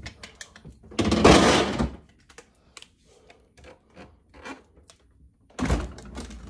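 Handling noise close to the microphone: two rustling bursts, about a second in and again near the end, with scattered light clicks and knocks between them.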